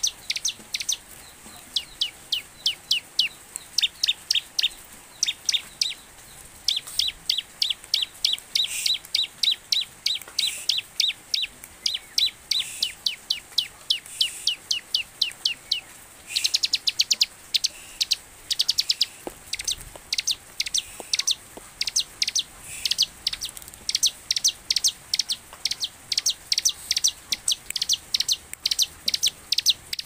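Bar-winged prinia (ciblek) singing hard: runs of sharp, high chirps several a second, repeated in phrases with short breaks, the full, vigorous song that keepers call gacor.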